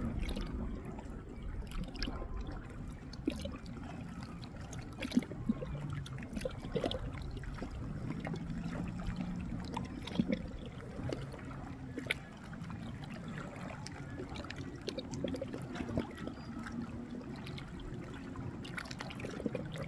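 River water trickling and lapping at the bank, with scattered small clicks and a faint low hum that comes and goes.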